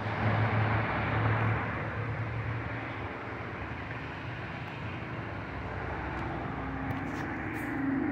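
Drone of a Beechcraft 65-B80 Queen Air, a piston-engined twin, on approach, growing louder near the end as it comes in overhead.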